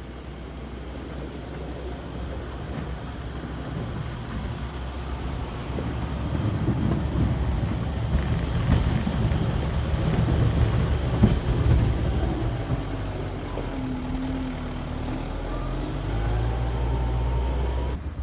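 Kubota M7060 tractor's diesel engine running while pushing snow, growing louder over the first ten seconds or so. Near the end a tone dips and rises again in pitch.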